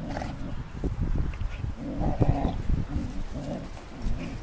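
Dogs play-fighting, a pug, a bassador and an Australian shepherd, growling in short rough spells as they wrestle.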